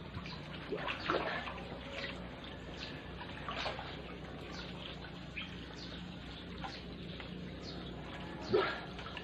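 Water splashing and lapping in an inflatable backyard pool as swimmers move through it underwater, with one louder moment near the end.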